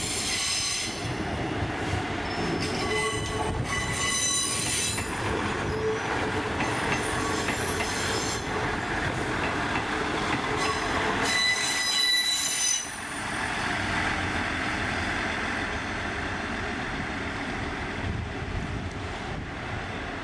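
Diesel multiple unit's wheels squealing in several bouts of high-pitched shrieking as it runs over curved junction pointwork, over a steady rolling rumble. The loudest squeal ends suddenly just before thirteen seconds in, and a steadier rumble follows.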